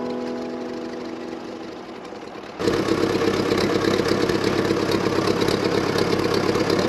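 The last of background music dies away, then about two and a half seconds in an engine cuts in suddenly, running steadily at idle with a fast, even chug.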